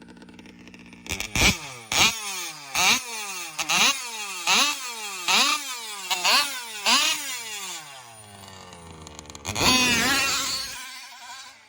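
Small two-stroke gas engine of an RC dragster idling, then revved hard in a series of about eight sharp throttle blasts, each a quick rising whine that drops back. About ten seconds in comes a louder, rougher burst, and then the engine sound dies away.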